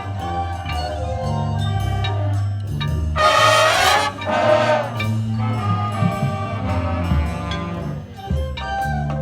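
Marching band playing: held low brass chords over percussion, with two loud accented swells about three and four and a half seconds in.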